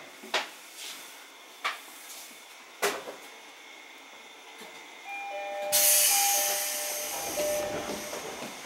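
A few sharp knocks, then an electronic chime of alternating notes, then a loud burst of compressed air hissing out of the 205-series electric train's air system, fading slowly.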